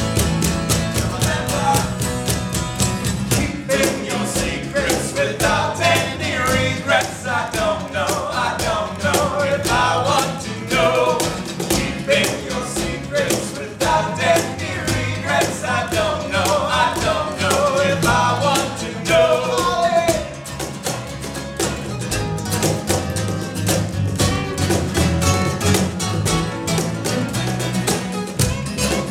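Live band playing a rock song without words, with steady drums and bass under it. A bending lead melody line comes in about four seconds in and fades out around two-thirds of the way through.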